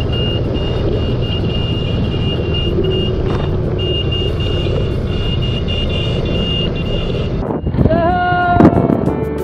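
Motorcycles riding at road speed: steady engine rumble and wind noise, with a high beeping tone sounding on and off. About seven and a half seconds in the sound breaks briefly, then a motorcycle engine revs up right alongside.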